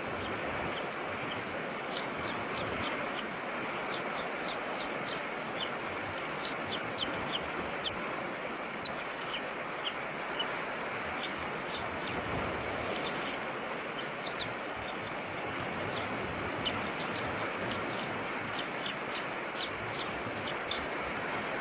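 Bald eagle chick peeping in many short, high, irregular chirps over a steady rush of wind and surf.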